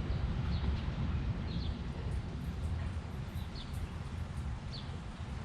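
A small bird chirping repeatedly, one short high chirp about every second, over a steady low rumble.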